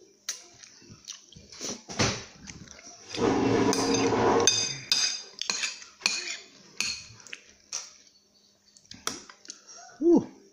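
Metal spoon clinking and scraping against a ceramic rice bowl during a meal, in a run of sharp clicks. About three seconds in, a louder rasping stretch lasts about a second and a half, and a brief rising-and-falling squeak comes near the end.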